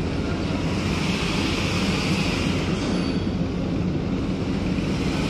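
Steady low engine rumble with an even hiss over it, and wind buffeting the microphone.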